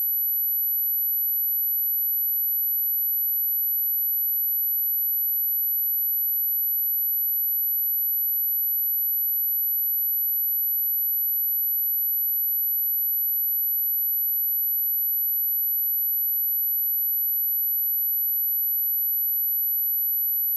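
A pure electronic sine-wave test tone at 11874 Hz, a steady high-pitched whistle held at one pitch and level throughout.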